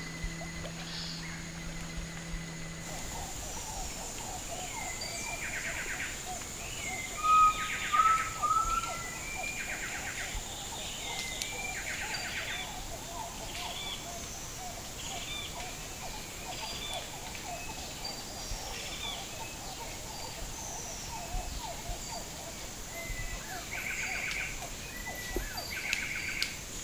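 A chorus of several birds: repeated short call notes, a few fast trills, and a loud run of whistled notes about seven to eight seconds in, over a steady high-pitched hum.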